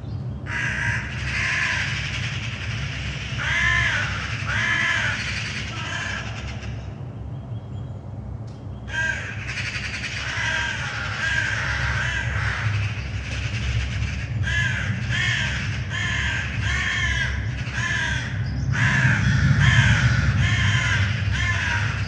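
Crows cawing over and over, harsh calls in quick series, with a short lull about seven seconds in. Under them runs a steady low rumble of aircraft engines, which grows louder near the end.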